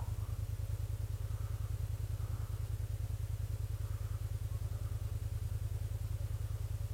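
Kymco AK550 maxi-scooter's parallel-twin engine idling steadily: a low, even, rapid pulse.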